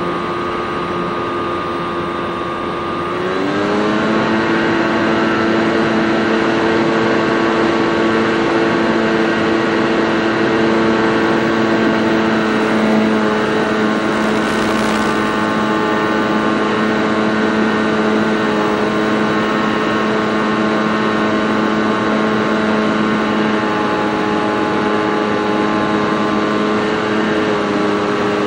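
Senorita model airplane's motor and propeller running in flight, heard from the onboard camera: a steady droning tone that rises in pitch about three seconds in as the throttle is opened, then holds, easing slightly near the end. A short rush of wind noise passes about halfway through.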